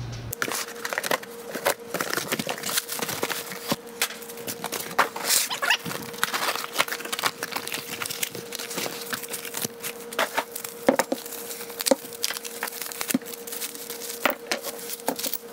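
A cardboard shipping box being cut open and pulled apart, then bubble wrap being cut and peeled off a hydraulic ram. Rustling, crinkling plastic and many scattered small clicks and taps, over a faint steady hum.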